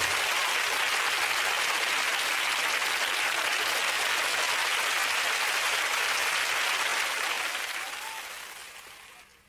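Studio audience applauding steadily, fading out near the end.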